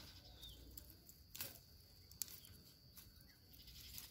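Near silence: faint outdoor ambience, with one small high chirp about half a second in and two soft clicks, the sharper one about two seconds in.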